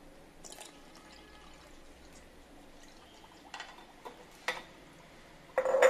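Milk being poured from a glass jar into a stainless steel mixer jar over eggs and bread crumbs: a faint, steady pouring, with a few short sharper sounds in the second half.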